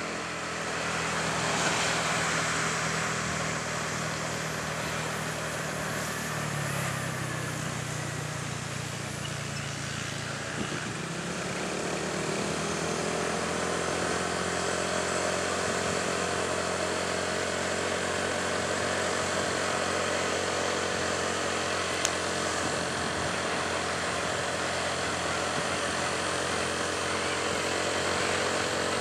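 Motorcycle engine running at a steady road speed over wind and road noise. The engine note shifts about ten seconds in and then holds steady.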